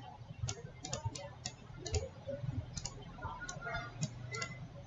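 Computer mouse clicking: a dozen or so light, sharp clicks at uneven intervals.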